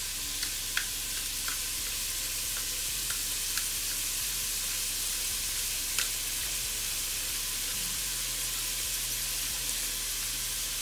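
Chopped onion, bell pepper and celery sizzling steadily in hot bacon fat in a stainless steel pot, with a few faint crackles.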